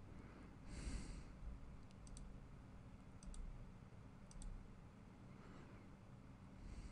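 Faint computer mouse clicks, three of them about a second apart, each a quick double tick, as edges are selected one by one in CAD software, over a low steady hum.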